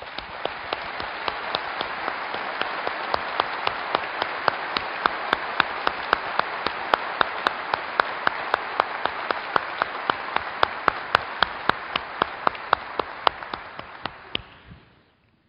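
Large audience applauding, swelling over the first couple of seconds and dying away near the end, with one nearby person's claps standing out sharply at about three a second.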